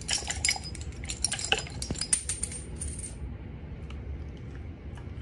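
Fingers clicking and tapping on a dog's teeth: a rapid run of light clicks and ringing clinks for about three seconds, then only a few faint ticks.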